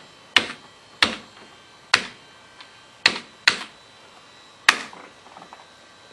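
Keys pressed one at a time on a computer keyboard: six sharp clacks, unevenly spaced about half a second to a second apart, as a password is typed in.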